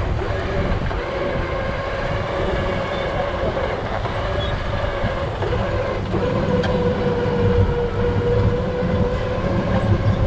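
Vehicle winch running under load: a steady whine that sags slightly lower in pitch about six seconds in, over a low rumble.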